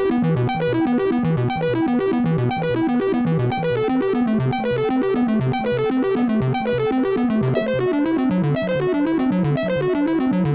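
Donner B1 analog bass synthesizer playing a held arpeggio: a fast, even run of short notes cycling up and down through a chord in a repeating pattern.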